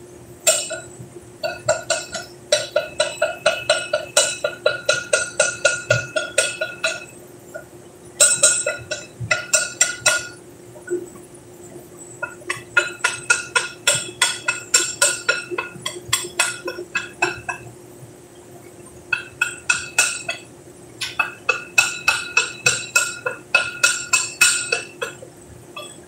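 Rapid hammer strikes on steel at a boiler's manhole, about four to five a second, each with a short metallic ring. The strikes come in six runs of one to five seconds with short pauses between them, over a faint steady hum.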